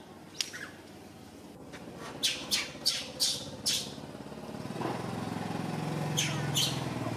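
A quick series of short, sharp, high-pitched animal calls, about six in a row, then two more near the end. From about two-thirds of the way in, a low, steady engine hum rises underneath.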